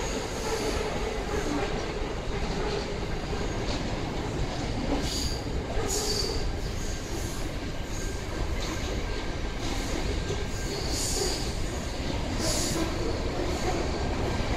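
Freight train wagons rolling past at speed, a steady rumble of wheels on rail. Several short high-pitched wheel squeals come through every few seconds.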